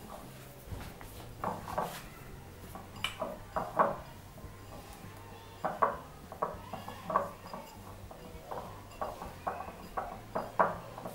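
A hand mixing a crumbly mix of roasted semolina, powdered sugar and ghee in a glass bowl: irregular scrapes and light taps of the fingers against the glass.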